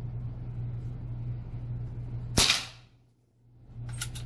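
A single shot from an AirForce Talon pre-charged pneumatic air rifle: one sharp crack about two and a half seconds in, with a short echo, over a steady low hum. A few light clicks follow near the end.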